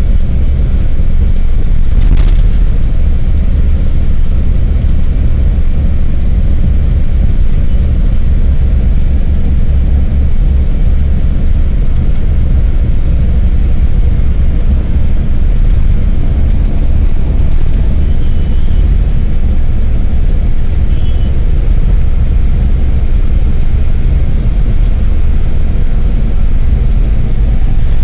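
Steady low rumble of a car driving at highway speed, heard from inside the cabin: road and engine noise, with a single short click about two seconds in.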